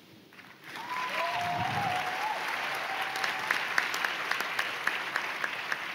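Audience applauding after a speech line. The applause starts suddenly less than a second in, and single claps stand out more toward the end. A brief pitched cheer is heard over it about a second in.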